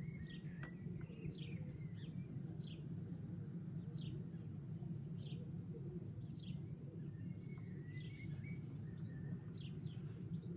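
A small wild bird repeating a short, high, downward chirp roughly every second and a bit, over a steady low outdoor rumble.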